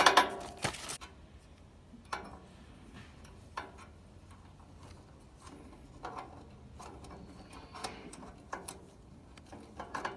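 Small metal parts being handled as a wire venturi clip is fitted onto a gas grill side burner's steel venturi tube: a brief clatter right at the start, then sparse faint clicks and ticks.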